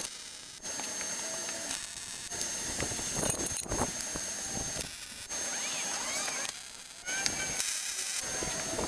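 Metalworking tool noise in short clips cut together, each starting and stopping abruptly, with a few faint squeals near the end.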